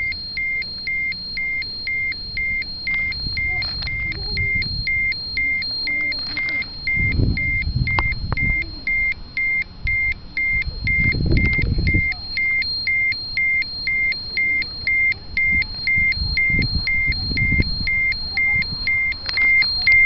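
Ecotest MKS-05 Terra-P radiation dosimeter beeping its dose-rate alarm, a steady train of short high beeps about two a second. The reading is climbing past 5 µSv/h on contaminated ground, far above the alarm threshold. A couple of low rumbles sound in the background.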